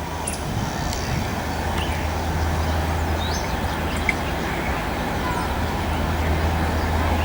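Low, steady rumble of the Rajdhani Express locomotive as the train crawls, growing slightly louder.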